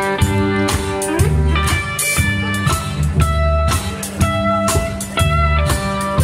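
Country band playing an upbeat line-dance tune: electric guitar leads over a pulsing bass and a steady beat.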